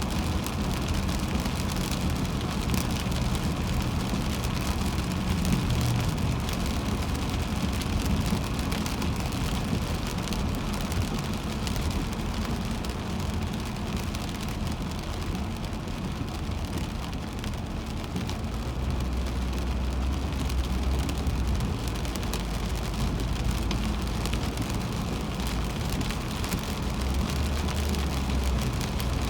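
A car driving on a highway in rain: rain pattering on the car over steady road and tyre noise, with a low drone that grows stronger about two-thirds of the way through.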